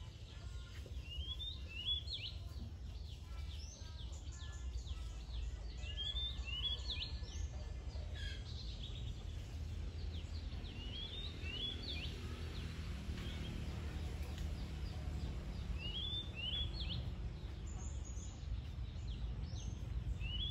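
A bird singing the same short, quick sweeping phrase over and over, about every five seconds, among fainter chirps, over a steady low rumble.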